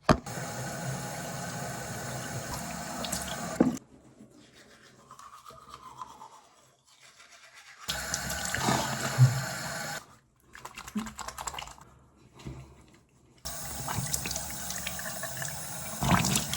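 Electric toothbrush buzzing in three stretches of a few seconds each, starting and stopping abruptly, with quieter stretches of brushing and rinsing between.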